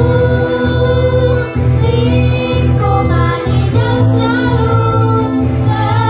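Children, mainly girls' voices, singing a jingle through microphones over instrumental band backing with a steady bass line.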